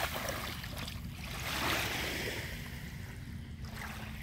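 Shallow bay water lapping and splashing as a small dog wades in and swims out, with wind rumbling on the microphone.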